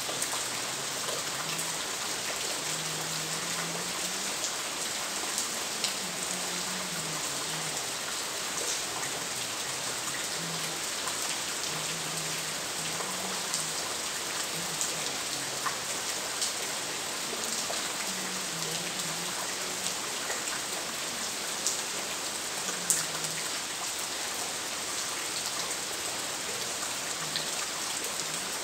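Steady rain falling, with scattered sharp drips ticking through it.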